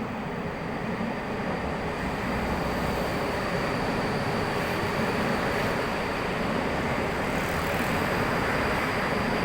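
Electric commuter train on the Seibu Ikebukuro Line running past, a steady rumble that builds over the first few seconds and then holds, with a faint high-pitched tone throughout.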